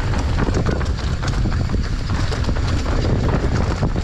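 Enduro dirt bike riding a rough forest trail: the engine runs under heavy wind noise on the microphone, with frequent short knocks and rattles from the bike over the rough ground.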